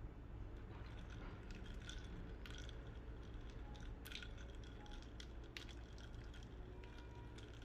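Faint scattered clicks and soft squishy handling sounds over a steady low hum.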